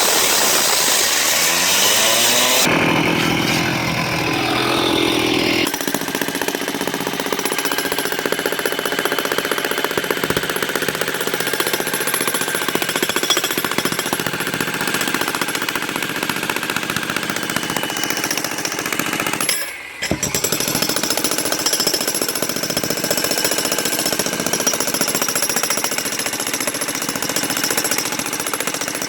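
Jackhammer breaking up concrete around a pool jet with steady, rapid hammering. The first few seconds sound hissier and more like cutting, and there is a brief break about two-thirds of the way through.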